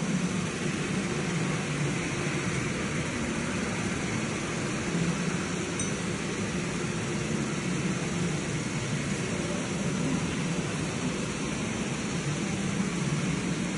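Large diesel engine running steadily: an even, noisy drone with a low hum under a broad hiss, starting and stopping abruptly.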